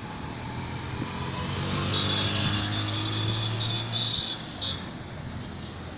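Motor vehicle engine running in nearby road traffic: a steady low hum that stops about four seconds in, with a high-pitched whine over its middle.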